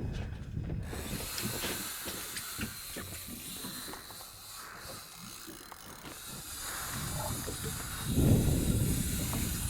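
Fishing reel giving line to a running hooked shark: a steady hiss from the reel's drag, starting about a second in. A low rumble joins about eight seconds in.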